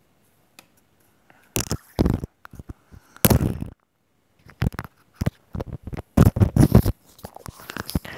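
Loud rustling and scraping handling noise in several bursts separated by short silences, with the densest cluster near the end, as toys and towels are handled close to the microphone.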